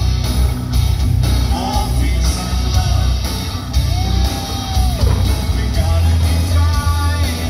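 Live rock band playing, with a man singing lead into a microphone over heavy bass, heard from the audience. A long held note comes about four seconds in.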